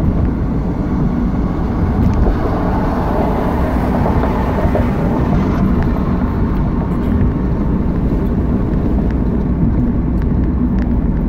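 Steady road and engine noise inside a moving car's cabin: a constant low rumble.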